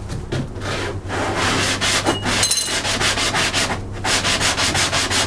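Hand sanding with a sheet of sandpaper on bare wood, rubbing off leftover veneer and veneer glue. The scratchy strokes become a fast, even back-and-forth of about six strokes a second from about four seconds in.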